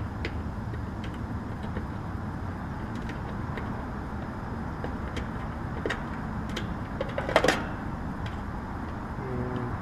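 Small scattered clicks and a short clatter about seven and a half seconds in, from wires and meter leads being handled at an air conditioner's capacitor terminals, over a steady low background rumble.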